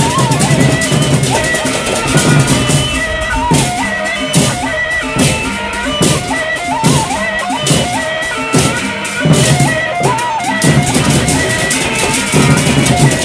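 Sasak gendang beleq ensemble playing live: large double-headed barrel drums beaten in a driving rhythm with clashing hand cymbals, and a pitched melody line over the percussion.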